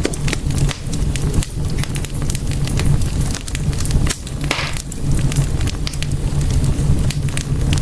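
Wood fire in a fireplace crackling, with frequent sharp pops and snaps over a steady low rumble of flames, and a brief hiss about four and a half seconds in.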